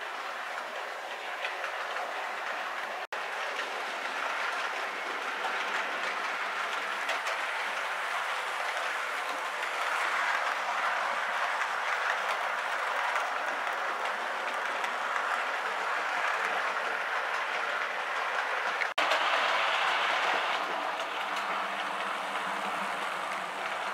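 Model train running along the layout's track: a steady rolling hiss of wheels on rails and the locomotive's motor. It drops out briefly twice, about three seconds in and again about nineteen seconds in.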